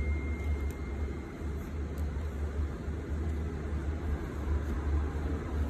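Steady low background hum with a few faint, light ticks of a small precision screwdriver working the tiny screws of an iPhone's internal shield. A thin high ring left over from a metal tool fades out about a second in.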